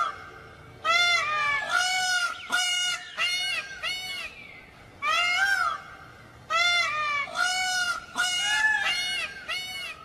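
Indian peafowl calling: a rapid run of about a dozen loud, honking calls, each rising and then falling in pitch, some overlapping, with two short pauses midway.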